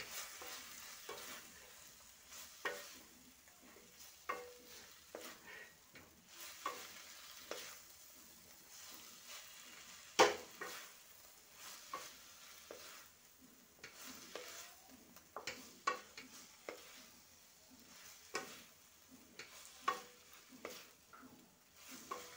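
Cabbage and potato curry being stir-fried down in a kadai: a spatula scraping and knocking against the pan again and again over a low sizzle, with one sharper knock about ten seconds in.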